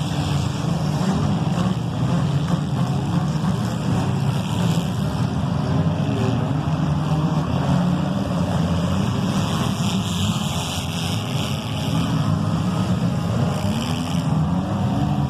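Compact demolition-derby cars' engines running and revving together, their pitch rising and falling unevenly.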